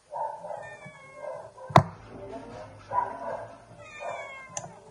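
Several short, whining animal cries that fall in pitch, with a single sharp knock a little under two seconds in.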